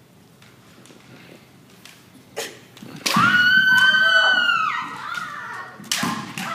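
Bamboo shinai clacking and knocking a few times, then a woman kendo fencer's long, high-pitched kiai shout lasting about a second and a half, followed by another sharp shinai strike near the end.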